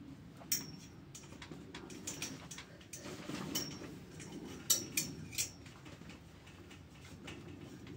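Several sharp metallic clicks and clinks at irregular intervals, the loudest a little past halfway, from hand work on the steel pipe frame of a greenhouse. A low steady rumble runs underneath.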